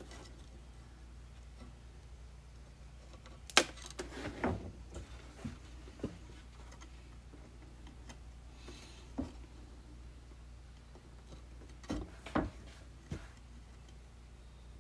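Scattered knocks and plastic clicks of hands working a zip tie through a hole in a hollow plastic laundry jug, with a wooden paint stick bumping against it, over a low steady hum. The sharpest knock comes about three and a half seconds in, and two more come close together about twelve seconds in.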